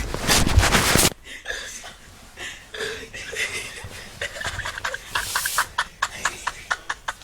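Stifled laughter: snorting and rapid, hushed giggles, about four pulses a second near the end, after a loud burst of noise in the first second.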